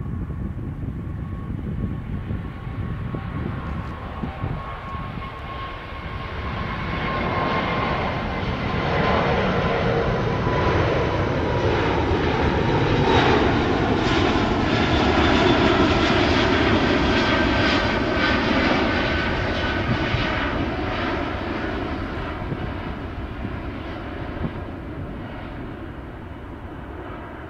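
Airbus A380-861's four Engine Alliance GP7200 turbofans at takeoff thrust as the airliner climbs out past: a jet roar that builds to a peak about halfway through, its whine sliding down in pitch as it goes by, then fading away.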